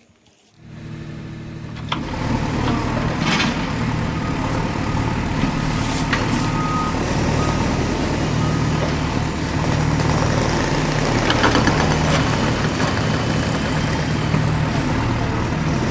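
Heavy vehicle engine sound running steadily, setting in about half a second in, with a few sharp clicks and a short run of evenly spaced beeps around the middle.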